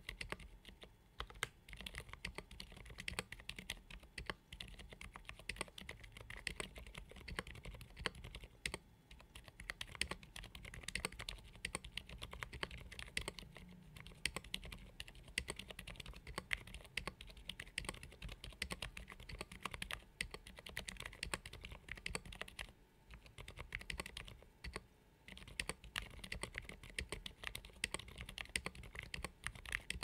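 Steady fast typing on a custom mechanical keyboard fitted with Aliaz 100g silent tactile switches lubed with Krytox, Dolch PBT keycaps, in an acrylic sandwich case. A dense run of key clicks, with two short pauses about three-quarters of the way through.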